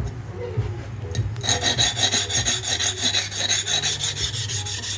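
Hair clipper blade scraped rapidly back and forth against a sharpening surface, a fast, even rasping that gets much louder about a second and a half in, with a metallic ringing edge.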